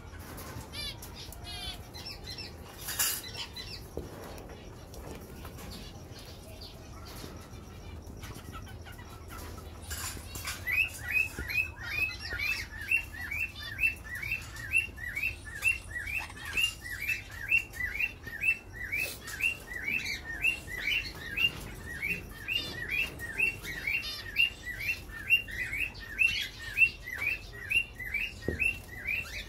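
Small finches chirping in an aviary: a few scattered chirps at first, then from about ten seconds in a steady run of short, quick, downward-sliding chirps, two or three a second.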